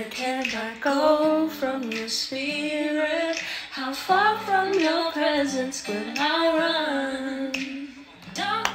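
A woman singing a Christian worship song over soft instrumental backing.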